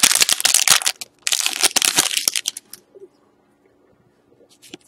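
A foil trading-card pack being torn open, its wrapper crackling in two loud spells over the first two and a half seconds, then a few faint ticks as the cards are handled.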